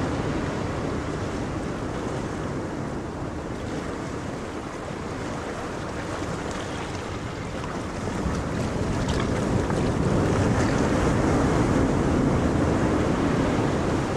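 Ocean surf: a steady wash of breaking waves, quieter in the first half and swelling louder from about two-thirds of the way through.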